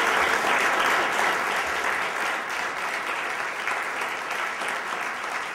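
Audience applauding, a dense steady clapping that is loudest at the start and slowly tapers off.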